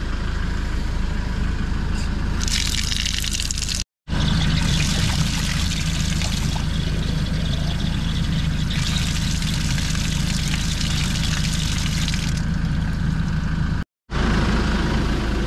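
Land Rover Defender 110 engine running with a steady low drone, under a rushing hiss that swells twice. The sound cuts out abruptly twice for a moment.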